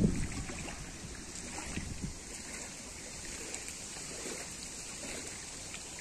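Gusty wind on the microphone, strongest at the very start and easing off, with a smaller gust about two seconds in, over a steady hiss of wind through reeds.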